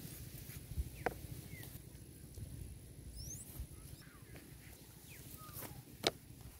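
Faint outdoor ambience: a low rumble of wind on the microphone with scattered short bird chirps. Two sharp knocks, one about a second in and a louder one near the end, come from handling a knife and fish over a plate.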